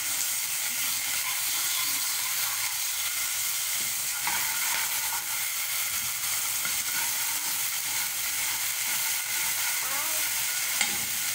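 Garlic frying in clarified butter in a frying pan, a steady sizzle while a spatula stirs it around the pan. A brief knock near the end.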